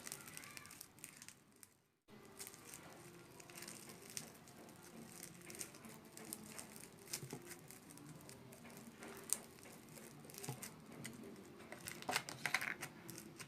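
Slime being squished and stretched by hand: a steady run of soft, irregular crackles and small sticky pops, with a brief break about two seconds in.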